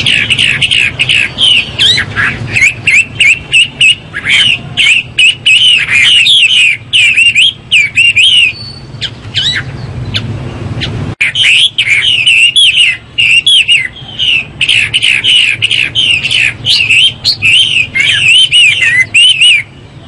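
Chinese hwamei (Garrulax canorus) singing a loud, rapid string of varied whistled phrases. The song pauses for a couple of seconds about halfway through, then starts up again.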